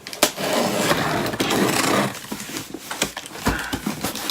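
Cardboard shoe box and packaging being handled and opened: a dense rustling and scraping for about two seconds, then softer handling with a few sharp knocks.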